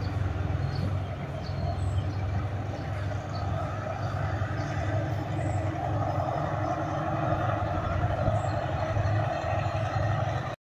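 Diesel train running with a steady low rumble as it pulls away along the track; the sound cuts off suddenly near the end.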